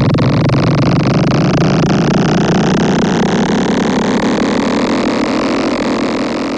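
Synthesized sci-fi drone effect: a dense, buzzing chord of many layered tones that slowly rises in pitch, beginning to fade near the end.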